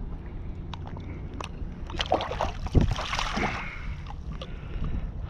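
Water splashing and sloshing for a second or so about two seconds in, as a hooked speckled trout is brought up at the surface and taken in hand with a fish grip. A sharp thump in the middle of the splashing is the loudest sound. Steady wind rumble on the microphone underneath.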